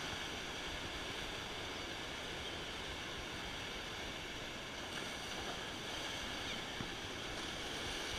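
Surf breaking and washing against the rocks of a jetty, a steady rush of water, with a low wind rumble on the microphone.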